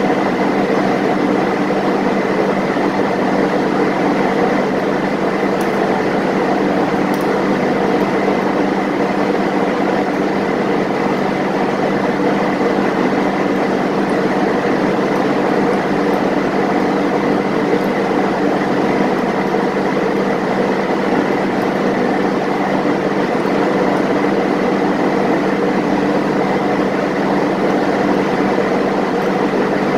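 Loud, steady drone of running engine-room machinery aboard a ship: several constant hum tones over an even wash of noise.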